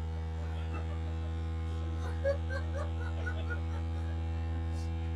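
Steady low electrical hum with a buzzy edge, under faint murmured voices in the room.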